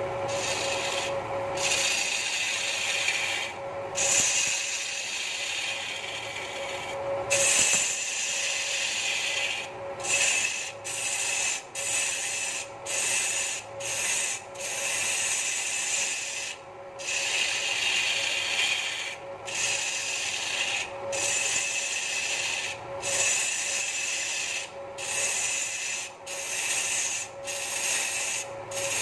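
Turning chisel scraping the spinning wooden stool blank on a wood lathe, cutting in repeated passes. The passes break off briefly many times, more often from about a third of the way in, and a steady hum from the lathe runs underneath.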